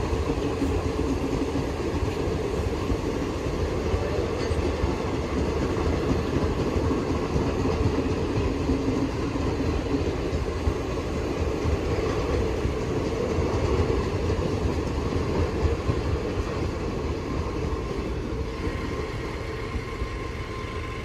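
A long rake of passenger train coaches rolling past, their steel wheels rumbling steadily on the rails. The noise eases slightly as the last coach goes by near the end.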